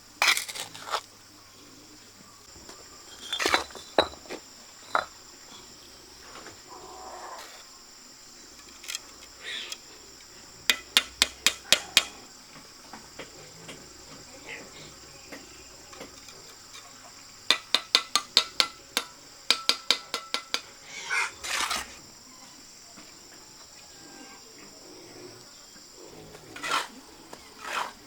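Sharp clinks of a trowel tapping on bricks, coming singly and in two quick runs of several strikes a second, over a steady high drone of insects.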